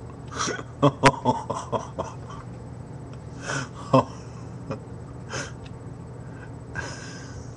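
A person breathing out hard and gasping: four breathy bursts a second or two apart. A quick run of short, sharp pitched sounds comes in the first two seconds. A steady low hum lies underneath.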